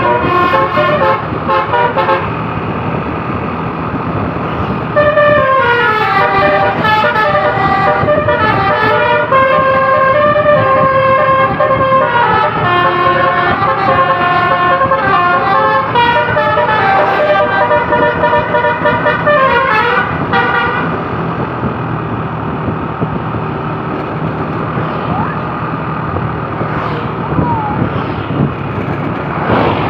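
Basuri telolet multi-tone bus horn playing a quick run of notes at the start, then a longer melody of notes stepping up and down in runs for about fifteen seconds before stopping. A steady engine rumble runs underneath.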